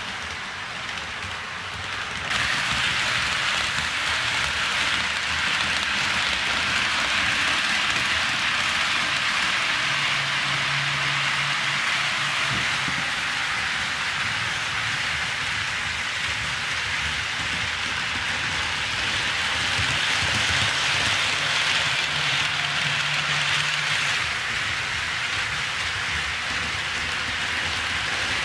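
HO scale model train running on its track: a steady, rain-like hiss of small metal wheels rolling over the rails, which gets louder about two seconds in. A faint low motor hum comes and goes.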